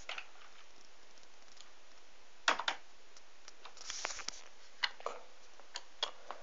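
Scattered clicks of computer keyboard keys being pressed, single strokes and small quick groups with pauses of a second or so between them.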